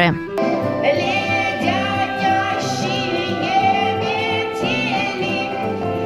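A woman singing a song with vibrato over instrumental accompaniment.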